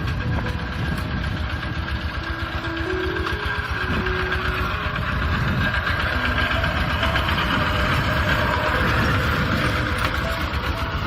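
Kubota tractor's diesel engine chugging steadily while ploughing a rice field, a little louder through the second half.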